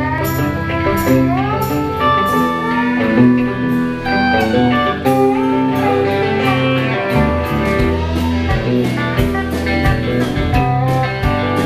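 Live country band playing an instrumental passage: electric guitars and a pedal steel guitar with bending, sliding lead notes over a drum kit keeping a steady beat.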